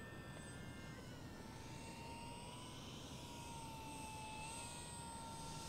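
Electric motor and propeller of an FMS PA-18 Super Cub RC plane whining faintly in flight on its landing approach, the pitch wavering slightly with throttle.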